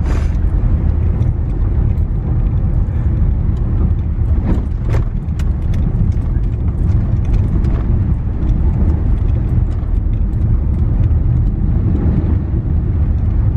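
Car driving, heard from inside the cabin: a steady low rumble of engine and road noise, with a few faint ticks against the body in the middle.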